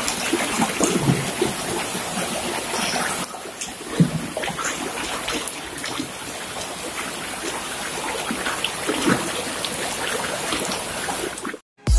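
Heavy rain pouring down onto flooded paving, with a steady hiss and the splashing and dripping of runoff. There is a single knock about four seconds in, and the sound cuts off near the end.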